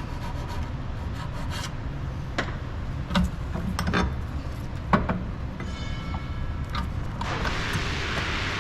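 Hand tool, likely a file, scraping and knocking on a steel brake caliper bracket in short strokes, cleaning rust and buildup off the pad landings. There is a brief squeal about 6 seconds in, and a hiss grows near the end.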